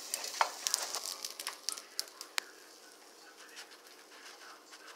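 Light, irregular clicks and crackles from a spatula and a hot oiled frying pan as a cooked pancake is lifted out. They die away after about two and a half seconds, leaving a faint hiss.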